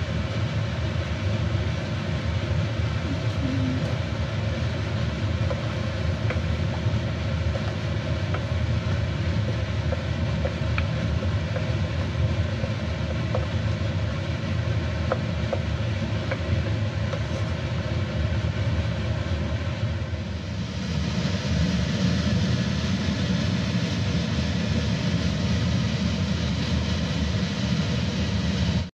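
Sweet and sour sauce boiling hard in a wok over a gas burner, a steady bubbling and sizzling over a low rumble, as it is reduced uncovered to thicken. About 20 seconds in the sizzle turns brighter and a little louder.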